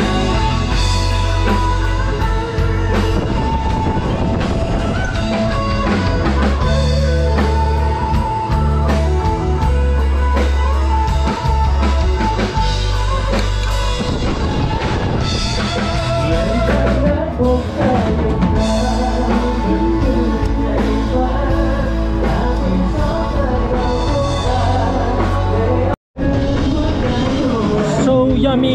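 Rock music with singing, drums and a heavy bass line. It drops out completely for a moment a few seconds before the end.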